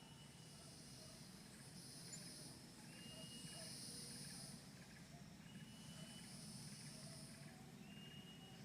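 Faint insect chorus: a high buzzing that swells and fades over a few seconds, with a short thin high whistle recurring every couple of seconds and a faint low hum underneath.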